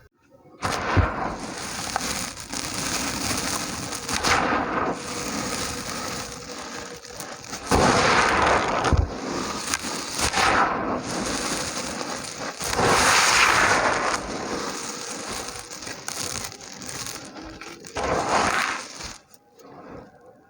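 Dry, gritty red dirt chunks being crushed and crumbling with a dense crackle. The crackle comes in several louder surges and stops shortly before the end.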